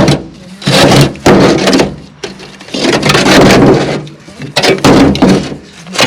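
Old bricks and brick rubble being thrown down by hand, crashing and clattering in a run of loud loads, some short, one lasting about a second.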